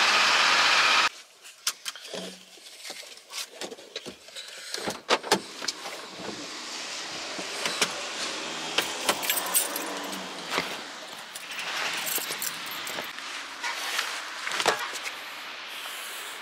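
Petrol rushing through a fuel pump nozzle into a car's tank, a steady hiss that cuts off suddenly about a second in. It is followed by a long run of scattered clicks, knocks and metallic jingles.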